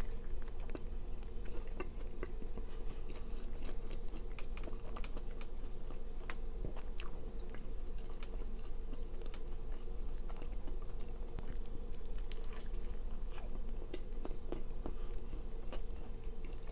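A person chewing and biting into a burger topped with mac and cheese and bacon, with many small wet mouth clicks over a steady low hum.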